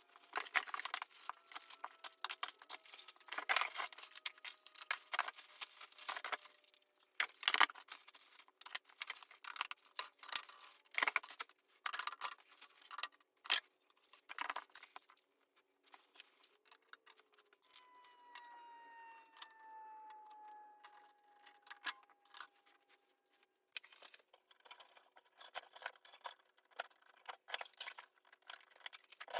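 Sped-up clicking, clattering and scraping of hardware and tools being handled during a ceiling fan installation, played at four times normal speed. About two-thirds of the way through, a pitched whine falls slowly for several seconds.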